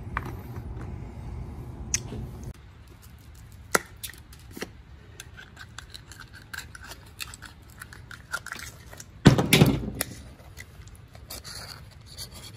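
Oysters being shucked with an oyster knife: scattered clicks and scrapes of the steel blade against the shells as it is worked into the hinge, with shells knocking on the table. One louder knock about nine seconds in.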